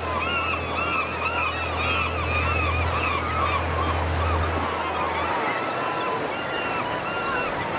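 A large flock of gulls calling over and over in repeated arching cries over the wash of water. Under them a fishing boat's engine hums low and steady, then stops about five seconds in.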